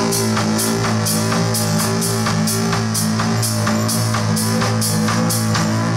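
Live rock band playing: a drum kit keeps a steady beat with regular cymbal hits over sustained low notes and guitars.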